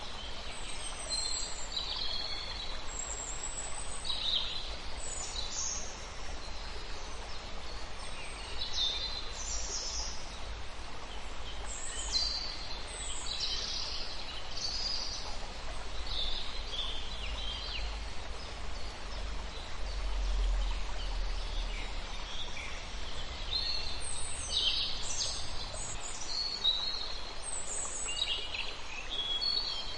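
Forest ambience: many birds singing and calling, short high chirps and trills overlapping throughout, over a steady hiss and low rumble.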